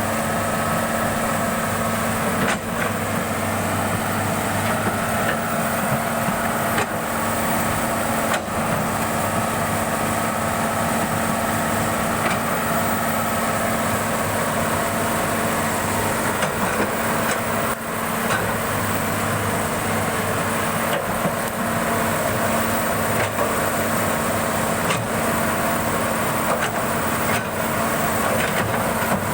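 Excavator's diesel engine running steadily, with occasional short knocks.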